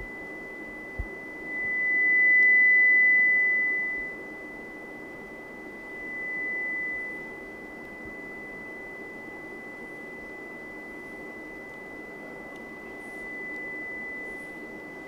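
A 2000 Hz pure sine test tone from a small speaker driven by a homemade analog graphic equalizer. It swells loud about two seconds in and falls back, then rises twice more, less strongly, as the equalizer's slide potentiometers are moved to raise and lower the gain.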